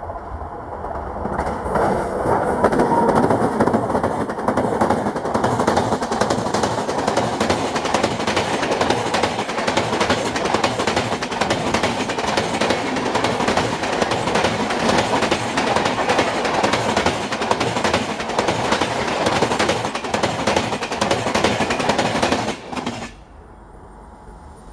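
Indian Railways express train, hauled by a WAP-7 electric locomotive with LHB coaches, passing close by at about 80 km/h. A loud, steady rush of wheels on rail builds over the first two seconds, with a rapid clickety-clack of wheels over rail joints. It cuts off suddenly near the end.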